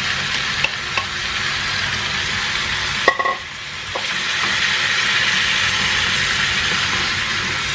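Marinated chicken sizzling in hot oil with ginger and garlic in a stainless steel pan, stirred with a plastic slotted spatula. There is a sharp clink about three seconds in, after which the sizzle drops briefly and then comes back stronger.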